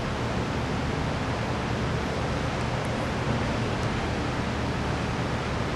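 Steady background noise: an even hiss with a low hum underneath, unchanging throughout, with no distinct clicks or other events.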